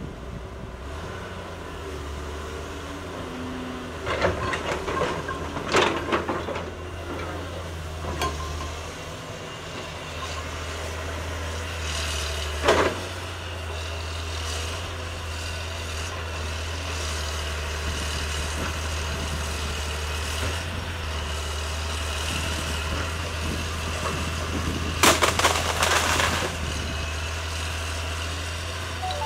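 Caterpillar 320C excavator's diesel engine running steadily, with several bursts of cracking and crashing as trees and branches break. The longest and loudest burst comes near the end.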